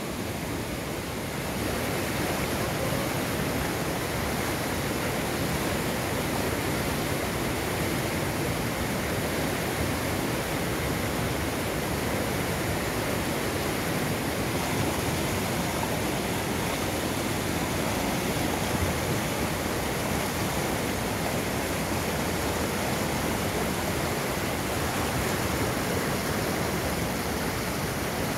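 A river rushing steadily, an even hiss with no breaks or distinct events.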